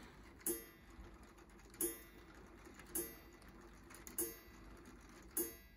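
LEGO Technic pendulum clock's striking mechanism sounding the hour: five evenly spaced strikes about 1.2 seconds apart, each a sharp hit with a brief ringing tone.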